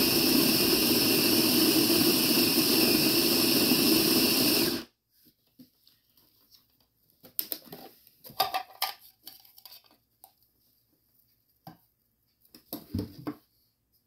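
Sboly conical burr coffee grinder's motor running steadily as it grinds beans, cutting off about five seconds in. Then come scattered light clicks, scrapes and taps as the plastic grounds container is taken out and emptied.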